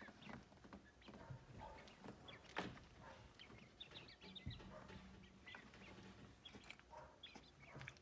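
Faint, short high-pitched chirps from a small flock of young quail, scattered throughout, with soft scuffling and one sharper knock about two and a half seconds in.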